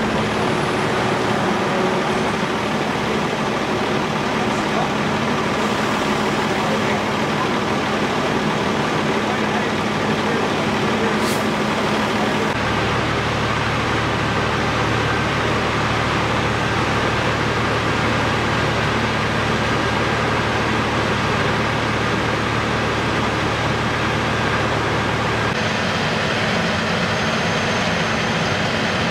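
Steady diesel engine drone of fire engines idling with their pumps connected, under a constant wash of engine and road noise. The low hum changes pitch about twelve seconds in and again near the end.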